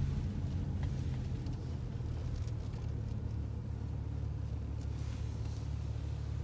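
A car's steady low rumble, heard from inside the cabin.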